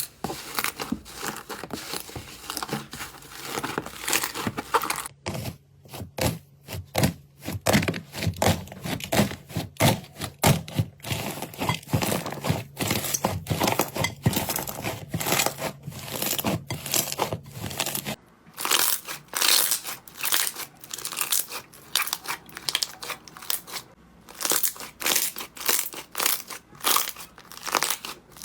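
Slime being pressed and squeezed by hand, giving dense crinkly crackling and popping clicks. The texture changes abruptly about five seconds in and again about eighteen seconds in.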